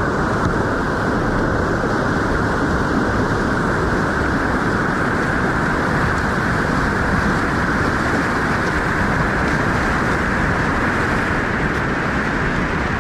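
Whitewater pouring through a river hole: a loud, steady rushing noise that does not change.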